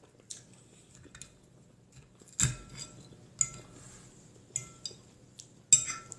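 Cutlery clinking against a plate: a series of sharp, briefly ringing clinks at irregular intervals, loudest about two and a half seconds in and again near the end.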